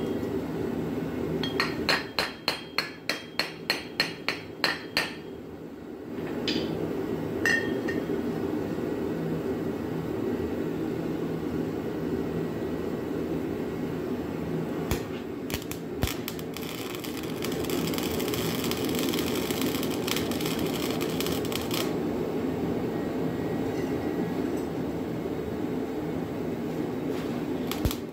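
A hammer striking a steel exhaust pipe: a quick run of about a dozen ringing blows, roughly three a second, then two more single blows a little later, over a steady background hum.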